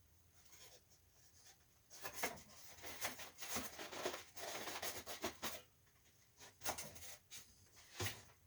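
Scratchy rubbing and scraping of hands working on the air-conditioner's parts, dense with small clicks for a few seconds, then a couple of short sharp knocks near the end.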